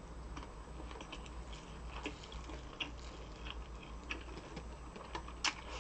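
Close-miked eating: irregular wet clicks and smacks of a mouth chewing food, one sharper click near the end.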